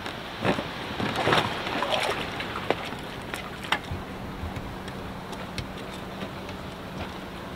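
Open-air marina ambience of wind and water with a faint low steady hum underneath. In the first three seconds come several knocks and rattles as the outboard motor is handled on the wooden dock, then only a few light clicks.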